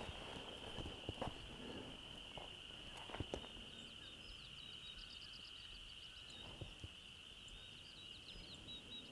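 Quiet evening outdoor ambience: a faint, steady high-pitched chorus of calling frogs or insects, with a small bird twittering in short runs about midway and again near the end. A few soft knocks come about a second in, around three seconds in and around six and a half seconds in.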